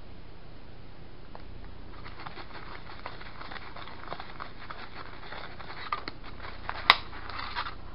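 Small plastic spoon stirring and scraping a candy mixture in a plastic kit tray: light scratching with a few clicks, the sharpest about seven seconds in.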